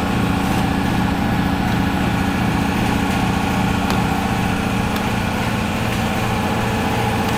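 A steady running engine or motor, a low hum with an even pulse a few times a second and no change in speed.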